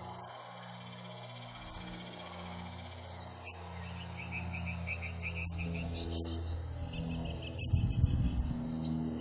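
Crickets chirping in short pulsed trills, with scattered sharp high clicks, over a low drone of held tones that shift in pitch every second or two.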